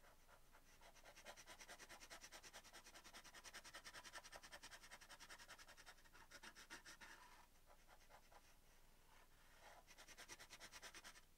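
Charcoal pencil scratching on primed canvas in quick, short hatching strokes, faint, with a pause of about two seconds before a last run of strokes near the end.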